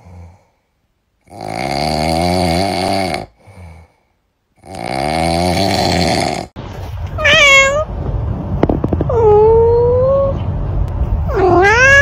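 A sleeping tabby kitten snoring, two long drawn-out snores of about two seconds each, then a tabby cat meowing three times over a steady background hiss, the last meow dipping and rising.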